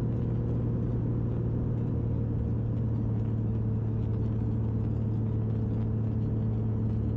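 Cockpit sound of a Zenith 601's Corvair flat-six conversion engine: a steady low drone at reduced power on final approach, with no change in pitch or level.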